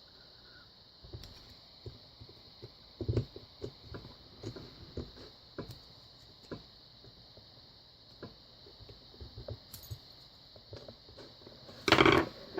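Small metal clicks, taps and scrapes of a tool working at the round retaining clip on the back of a dimple lock cylinder, with a louder rattle near the end.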